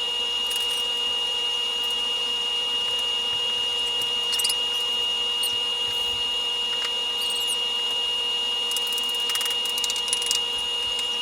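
Paint spraying white paint onto the saw table's underside: a steady hiss with a high, constant whine, and a few faint clicks.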